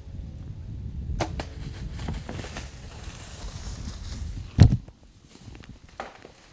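A 75-pound bow is shot at a whitetail buck: one sharp crack of the string and arrow about four and a half seconds in, the loudest thing here. Before it there is a low rumble with a light click about a second in, and a smaller click comes about six seconds in.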